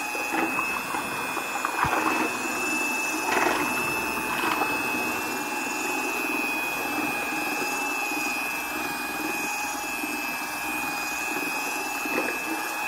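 Electric drill running steadily with a high, even whine, turning a paint-mixer paddle that stirs a batch of homemade soap. There are a couple of brief knocks in the first few seconds.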